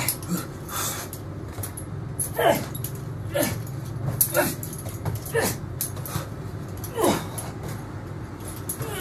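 A heavy steel chain rattling and clanking as it is swung and dropped during burpees, with short whining sounds that fall in pitch, repeated about six times.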